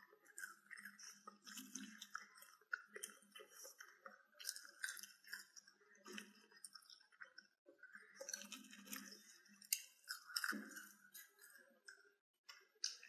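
Faint chewing of crisp French fries, with soft irregular crunches.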